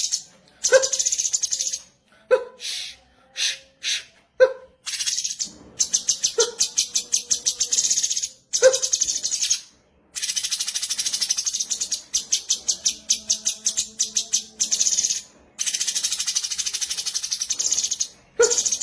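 Cucak cungkok (bulbul) singing: fast chattering trills of rapid high clicks, about ten a second, in bursts of one to three seconds, broken by short sharp chips.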